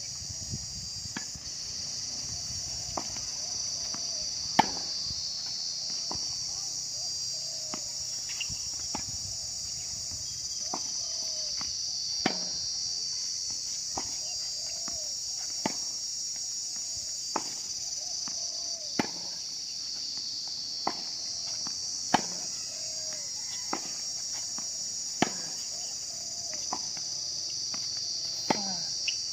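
Steady high-pitched chorus of insects, with sharp tennis-ball strikes off racquets about every second and a half, some louder than others, as a rally goes back and forth.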